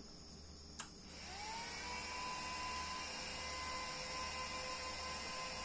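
A click as a homemade class D power amplifier is switched on, then its cooling fans spin up into a steady whir with a high whine that rises in pitch about a second in and settles into a steady tone.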